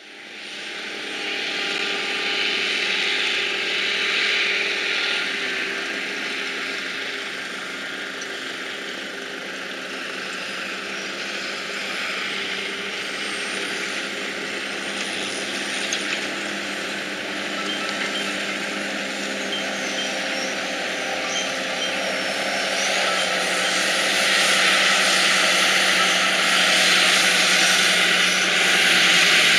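Diesel engines of silage harvesting machinery, tractors and harvester, running steadily under load. They grow louder near the end as the machines come closer.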